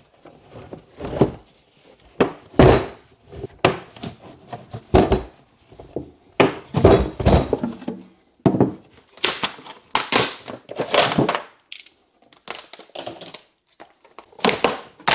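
Handling noise from a heavy LiFePO4 cell pack being worked out of its plastic battery case and set down on a wooden workbench: irregular thunks, knocks and scraping. Near the end comes a rustle of plastic sheeting as the pack's yellow insulating sheet is lifted back.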